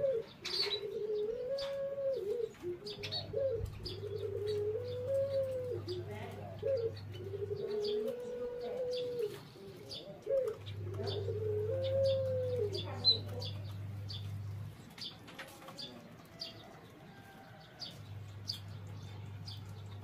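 Barbary doves (burung puter) cooing: a string of drawn-out coos, each about a second and a half long, that die away about two-thirds of the way through. Small birds chirp throughout.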